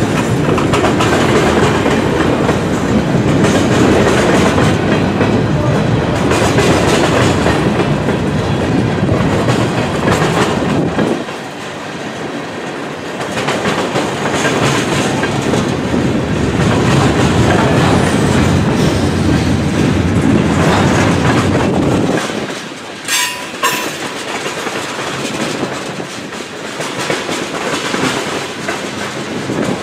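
Freight cars (covered hoppers, then gondolas and tank cars) rolling past: a steady rumble with the clickety-clack of steel wheels over rail joints. It eases slightly about a third of the way through. Two short, high squeaks come about three-quarters of the way in.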